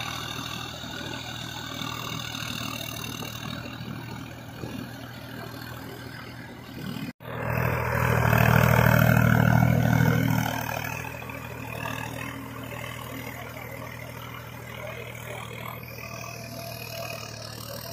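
Solis 5015 E 4WD tractor's diesel engine running steadily under load while its rotovator churns a flooded paddy. A brief break about seven seconds in, then the engine is much louder for about three seconds before it settles back.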